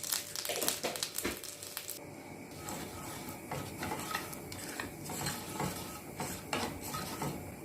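Cumin seeds sizzling in hot oil and butter in a tawa while a spoon stirs and knocks against the pan. The sizzle is strongest in the first two seconds, then thins to a quieter hiss with scattered spoon clicks.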